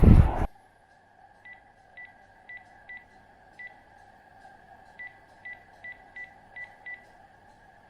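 Electronic keypad beeps: eleven short beeps of the same pitch, a run of five then a run of six, as buttons are pressed one after another, over a faint steady hum.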